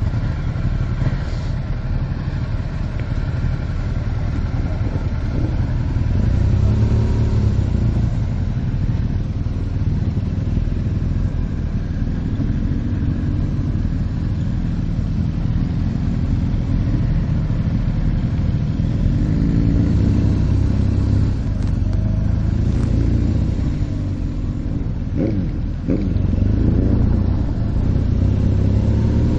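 Motorcycle engine running under way, its pitch rising and falling with the throttle several times, over steady rushing wind noise.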